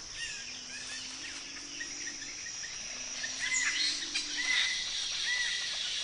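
Forest ambience: a steady high insect buzz with short, repeated bird chirps that come more often in the second half, and a faint low drone twice.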